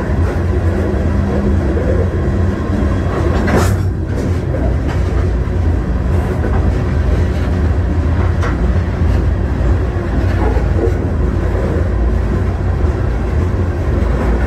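A freight train rolling, heard from aboard one of its cars: a steady loud rumble with rattling, and a brief sharp noise about three and a half seconds in.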